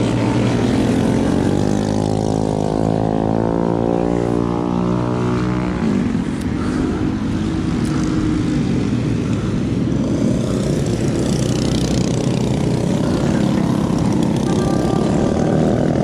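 Mini bike's small single-cylinder engine running hard, its pitch slowly climbing for the first few seconds. About six seconds in the clear engine note breaks off into a rougher, noisier engine rumble.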